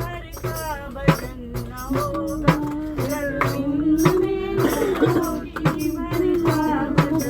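Devotional bhajan singing, a voice holding and bending long melodic notes over a steady beat of hand percussion, about two strikes a second.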